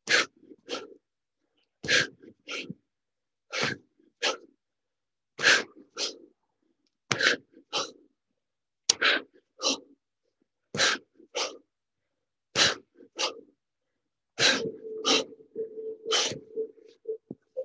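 Forceful breaths from a man doing kettlebell swings. With each swing, about every two seconds, comes a sharp, loud exhale followed by a shorter breath, nine times over. A low steady hum joins near the end.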